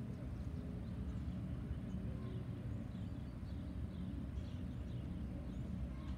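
Outdoor field ambience: a steady low rumble with faint, short high chirps now and then.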